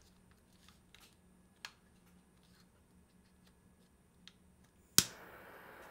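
Small handheld butane blow torch lighting: a few faint clicks as it is handled, then a sharp ignition click about five seconds in, followed at once by the steady hiss of its flame.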